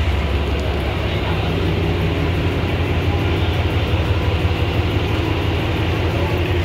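Diesel engine of a Class S8 DMU power car idling, a steady low drone.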